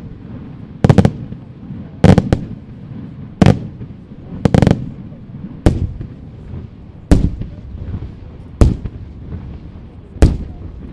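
Aerial firework shells bursting: a sharp bang about every second and a half, with a double bang near two seconds in and a cluster of quick bangs near the middle, each bang trailing off in a rolling echo.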